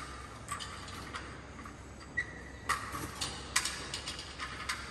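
Light clicks and taps of plastic toy train wagons being handled and coupled together, with two sharper clicks a little after halfway.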